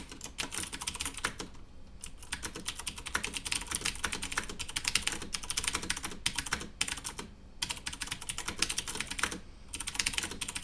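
Typing on a Cooler Master MasterKeys Pro M mechanical keyboard with clicky Cherry MX Blue switches: quick runs of keystrokes broken by a few short pauses.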